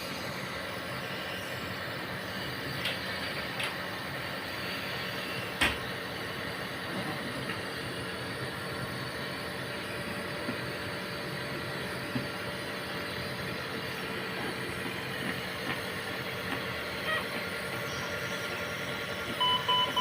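Steady hum and hiss of running hospital equipment, with a sharp click about five and a half seconds in and a few short electronic beeps near the end, as from a patient monitor.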